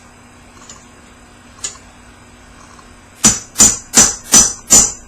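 A hammer striking a metal part of a GM NP246 transfer case five times in quick, even succession, about a third of a second apart, starting about three seconds in, after a single light click. The blows are tapping the part home to make sure it is seated.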